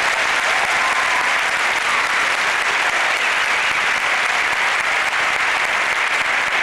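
Large crowd applauding steadily, a dense sustained clapping without break.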